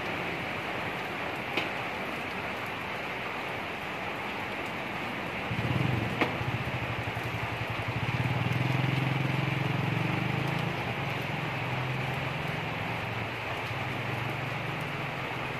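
Steady rain falling on wet pavement, with a couple of sharp drip-like ticks. About five and a half seconds in, a low vehicle engine hum rises and stays under the rain.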